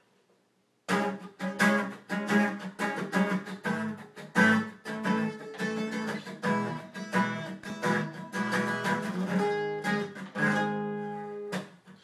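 Acoustic guitar strummed in a steady rhythm, the instrumental intro of a song, starting about a second in after near silence.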